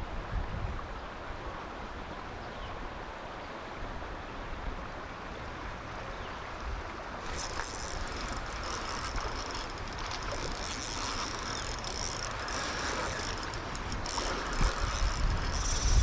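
River water running steadily. From about seven seconds in, a fishing reel ticks rapidly as a hooked steelhead pulls line against the drag or clicker.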